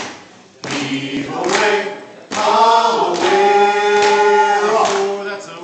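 A mixed group of men and women singing a sea shanty a cappella, holding one long note from a little over two seconds in until near the end.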